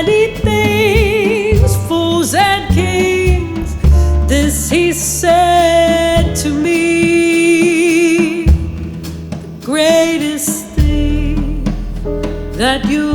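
Jazz combo playing: piano, acoustic bass and drums under a lead melody line held on long notes with wide vibrato.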